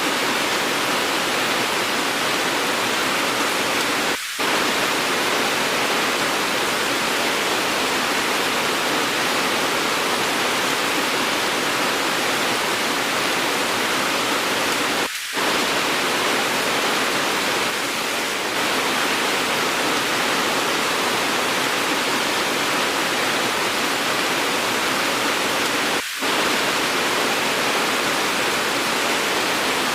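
Steady, dense rain hiss from an edited rain recording, with three brief dropouts about eleven seconds apart.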